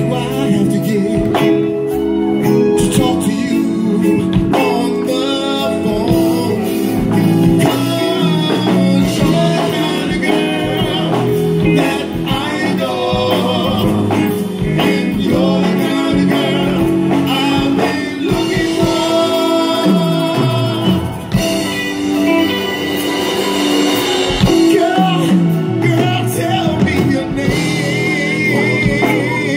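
Live band performing: a male vocal group singing lead and backing parts over keyboards and drums, amplified through a stage PA system.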